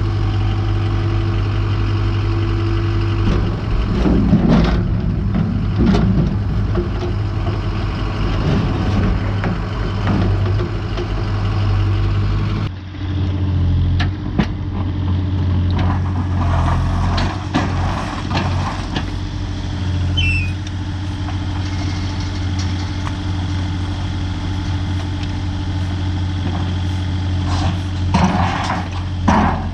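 A heavy engine running steadily, with scattered knocks and clatter over it, and an abrupt change about halfway through.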